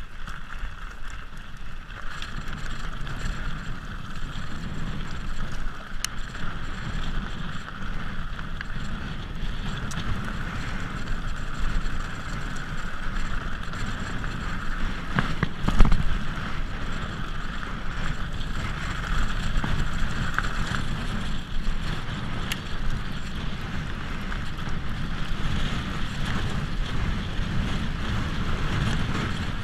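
Mountain bike rolling down a rough dirt and gravel track: steady wind on the microphone over tyre rumble and bike rattle, with a few sharp clicks and a louder jolt about sixteen seconds in.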